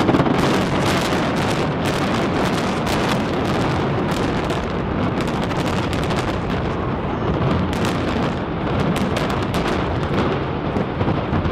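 Explosive demolition charges firing in rapid sequence through a reinforced concrete stadium dome: a sharp blast at the start, then a dense, continuous crackle of detonations over a heavy rumble as the structure is imploded and collapses.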